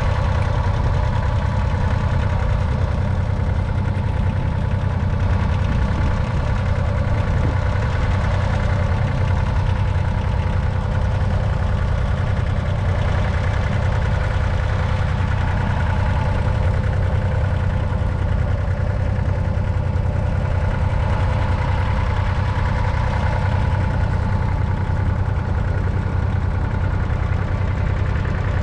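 Massey Ferguson 1010 compact tractor's three-cylinder diesel engine running steadily under load, pulling a single-furrow trailed plough through the soil.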